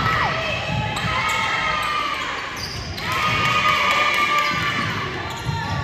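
Basketball sneakers squeaking on a hardwood court in short, sliding chirps, over the thuds of the ball bouncing and players' feet, echoing in a large gym.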